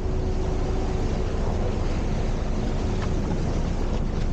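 Icebreaker hull pushing through and crushing sea drift ice: a steady low grinding noise with a faint steady hum from the ship, and wind on the microphone.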